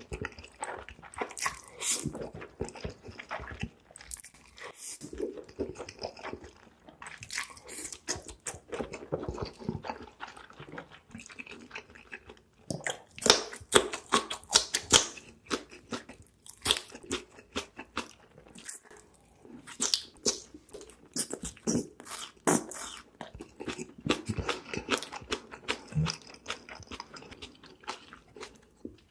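Close-miked mukbang eating sounds: a person chewing and biting food, with wet mouth clicks and smacks coming irregularly throughout.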